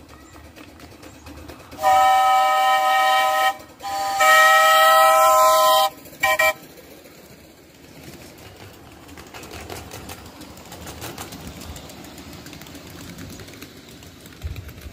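Chime steam whistle of a ridable live-steam miniature locomotive, sounding two long blasts and then a short toot, several tones at once.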